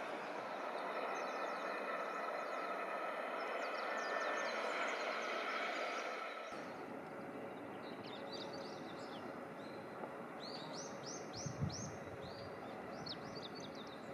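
Small birds chirping in short repeated series over a steady outdoor noise. The background changes abruptly about six and a half seconds in, after which the chirps stand out more clearly. A brief low thump comes near the end.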